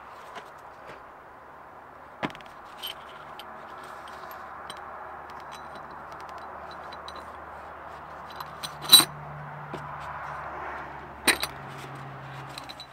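Steel parts of a 1988 Porsche 944 Turbo CV joint clinking as the ball bearings and cage are fitted into the outer race by hand. There are a few sharp metal clicks, the loudest about nine seconds in and two more close together near eleven seconds, over steady background noise.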